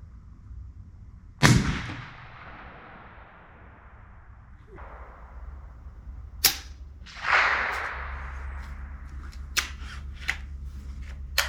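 Gunshots at a rifle range: a loud rifle shot about a second and a half in with a long echoing tail, and a second shot about six seconds later that also rings out. Several short sharp clicks fall in between and near the end.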